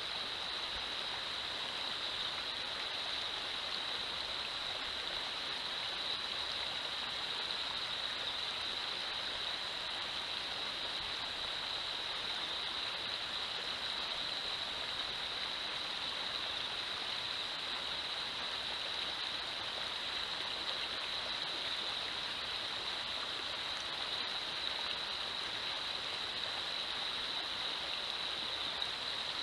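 River water running steadily over a shallow, rocky riffle, an even rushing sound, with a steady high-pitched hiss laid over it.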